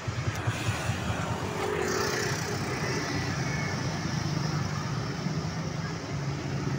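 Street traffic with a steady hum of motor scooter and car engines and tyre noise as vehicles pass close by.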